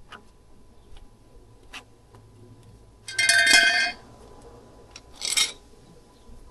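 A few light clicks of tools, then a power tool runs for just under a second with a whine. About two seconds later comes a second, shorter burst.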